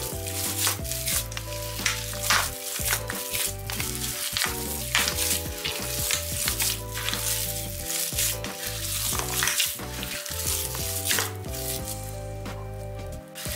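Bare hands kneading and squeezing a wet, gritty çiğ köfte mixture of bulgur, pepper paste and ice cubes in a metal pan: repeated squelching, crunchy squishes. Soft background music plays underneath.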